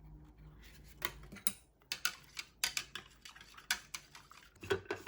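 A string of light clicks and taps from small hard objects being handled, irregularly spaced, with a few louder knocks near the end.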